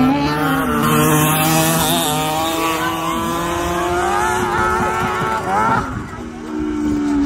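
600cc go-kart engine revving hard as the kart laps the track, its pitch rising and falling with the throttle. About six seconds in it climbs, then drops suddenly and settles into a steady, slowly falling note.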